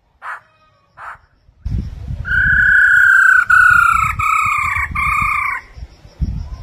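Black-throated laughingthrush calling: two short notes, then a loud, clear whistled phrase of three or four slightly falling notes lasting about three seconds, over a low rumble.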